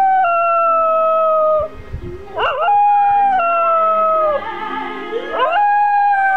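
A spaniel howling in long drawn-out notes. Each note starts with a quick upward swoop, holds, and slides down in steps. One howl trails off near 2 s, another runs to about 4.5 s, and a third starts about 5.3 s.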